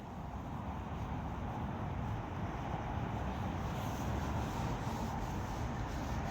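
Steady low rumbling background noise with no distinct events, swelling slightly in the first second.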